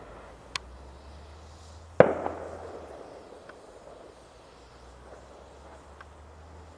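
A firework bang about two seconds in, with a quick second report and a long echoing tail over the frozen lake. A faint crack comes shortly before it and a few light pops after it.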